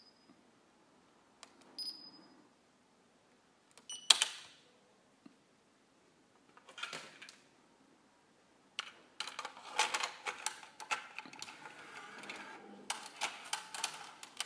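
Panasonic DC1 DCC car stereo: button presses with short high electronic beeps, then a cassette pushed into the tape slot and the deck's transport loading it, a dense run of clicks and mechanical clatter lasting several seconds.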